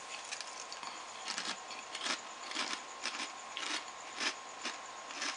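Someone chewing crunchy Lay's Tikka Masala potato chips: repeated crisp crunches, about two a second.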